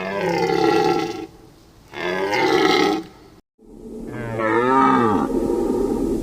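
Deer calling: three long, pitched calls with short pauses between them. The third call wavers up and down in pitch before dropping away.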